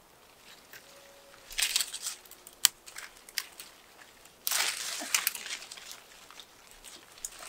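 Leaves rustling and twigs cracking as clusters of green walnuts are pulled from walnut-tree branches by hand. Two bursts of rustling, about a second and a half in and again a little past halfway, with a few sharp snaps between.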